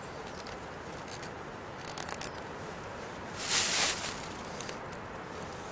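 Knife carving a wooden stick: a few light scrapes, then one longer hissing shaving stroke about three and a half seconds in.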